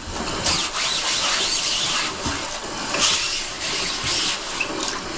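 Bathtub faucet running hot water onto a screen-printing screen while a sponge scrubs the mesh, washing out emulsion remover. It is a steady splashing rush with scrubbing strokes over it.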